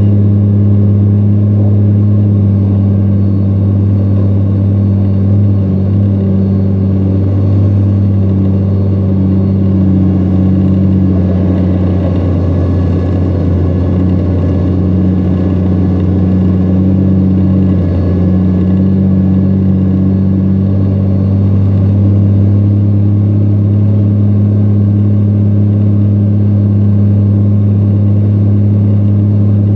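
Iveco truck's diesel engine roaring under heavy load as the truck pushes through deep sand, holding a nearly steady pitch.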